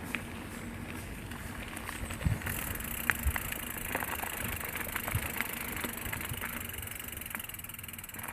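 Steel hardtail mountain bike being ridden: a steady rush of its 27.5-plus tyres rolling, with scattered clicks and knocks as the bike rattles over bumps. The rush grows louder and hissier about two and a half seconds in.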